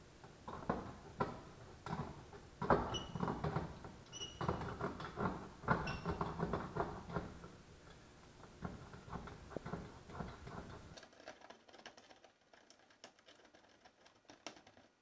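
Hand-tool work inside the aluminium-tube fuselage: irregular scraping, clicking and rubbing with a few short, high squeaks, dropping to faint scattered clicks about eleven seconds in.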